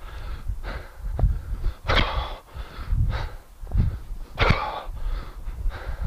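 A man's hard, rhythmic exhalations through the nose and mouth, one forceful breath with each one-handed kettlebell clean, about one every second or so over a low rumble.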